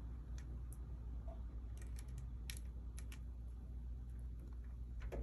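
Faint, irregular small clicks and taps from handling the power cord's wires, a few scattered and a small cluster in the middle, over a steady low hum.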